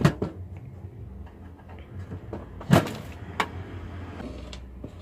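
The black metal case of an audio reverb effect unit being handled and slid about on a workbench: light scrapes and clicks, with one sharp knock a little past halfway.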